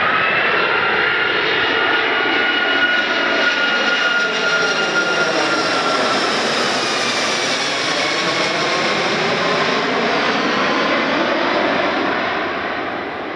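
Airbus A340-600's four Rolls-Royce Trent 500 turbofans on a low flyover: a loud jet roar with a high fan whine that drops in pitch as the aircraft goes overhead, and a swirling, phasing sweep through the roar. It fades near the end as the aircraft climbs away.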